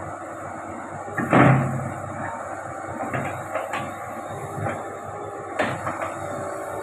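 Hitachi Zaxis 110 hydraulic excavator's diesel engine running steadily while it works piles into the stony riverbed. There is a loud heavy thud about a second and a half in, a second sharp knock near the end, and a few lighter knocks between.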